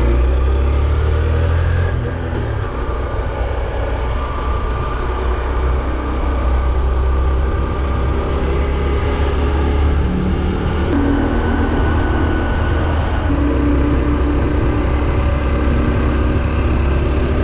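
Honda CT125 Hunter Cub's single-cylinder four-stroke engine running under way, with wind rumble on the handlebar microphone; the engine note shifts in pitch a little past halfway.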